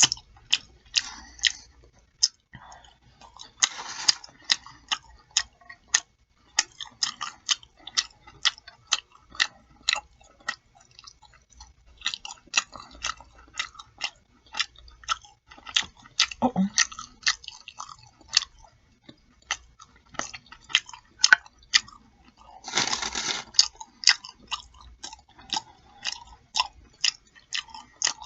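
Close-miked chewing and wet lip-smacking while eating pork chops: a steady stream of irregular sharp mouth clicks. There are two longer, noisier bursts, about four seconds in and near the end.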